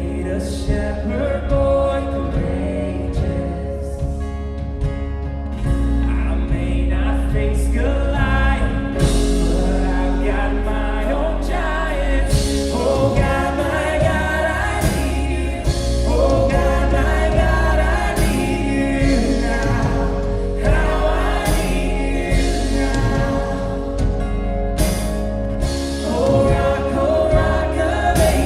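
Live contemporary worship band with several singers, over bass, drums, guitars and keys, picked up by a recorder in the room. Sharp cymbal-like hits recur throughout.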